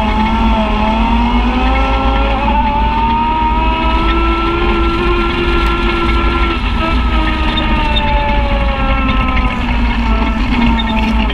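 Side-by-side UTV engine running under steady throttle, heard from the vehicle's hood. Its pitch rises slowly over the first few seconds and then eases back down, over a heavy low rumble.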